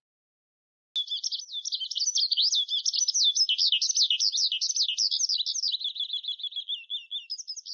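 Skylark song: a rapid, unbroken high warbling of chirps and trills that starts about a second in and runs on without a pause.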